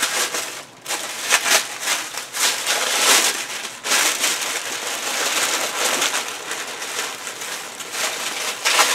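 Red tissue paper rustling and crinkling in irregular bursts as a gift is unwrapped by hand.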